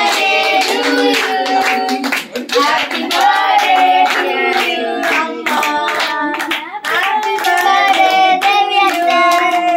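A small group of people clapping along in rhythm while singing, as for a birthday song at a cake cutting.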